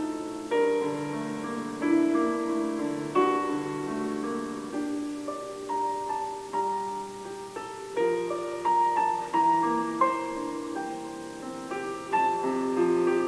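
Background piano music: a melody played over chords, one struck note after another.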